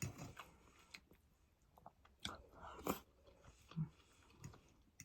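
Close-up eating sounds: a man chewing and making soft mouth noises, with a few sharp clicks spread through.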